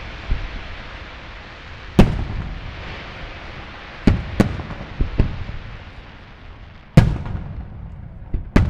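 Fireworks display: aerial shells bursting as sharp booms, about nine of them at irregular spacing, the loudest about two and seven seconds in, each trailing off, with a fading hiss between the bursts.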